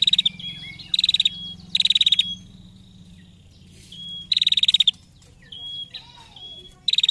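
Female prenjak (prinia) giving its rapid 'tir-tir-tir' ngetir call: five short, loud, fast-pulsed chattering bursts, with brief thin whistled notes in between.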